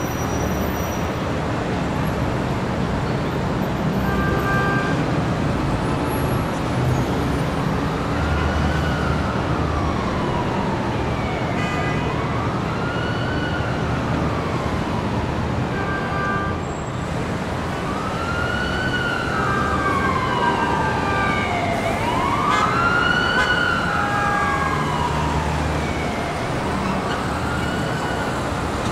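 Street traffic with an emergency vehicle's siren wailing in slow rising-and-falling sweeps, starting about eight seconds in and loudest around the middle.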